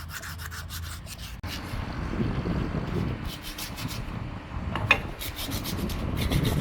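Quick back-and-forth rubbing strokes of hand sanding or scrubbing on a pump part. About a second and a half in, they give way to rougher, lower scraping and handling noise, with one sharp click near the end.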